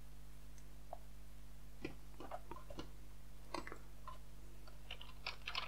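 Faint, scattered clicks of a computer mouse and keyboard, a handful of light taps over a steady low hum, as a terminal is opened and a command is typed.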